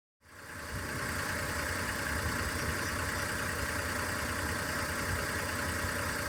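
An engine idling steadily with a low hum under a broad rushing noise, fading in at the start.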